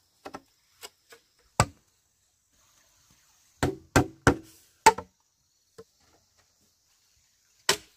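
Hollow knocks on bamboo: a few light taps, one sharper knock, a quick run of four knocks, and a last knock near the end.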